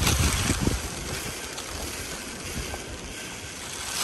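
Wind buffeting the microphone in rumbling gusts during the first second, settling into a steady rushing hiss of wind and falling rain.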